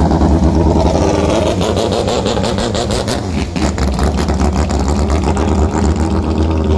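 Thai longtail racing boat's engine running flat out at high revs as the boat speeds past and draws away across the water.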